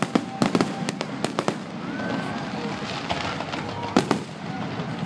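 Aerial firework shells bursting in a quick series of sharp bangs during the first second and a half, with a few more bangs near the end.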